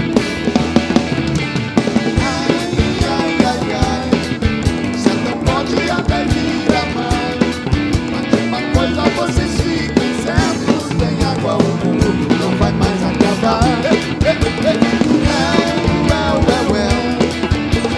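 Live band playing an instrumental passage of a rock-style baião: a drum kit keeps a steady beat under bass and electric guitar.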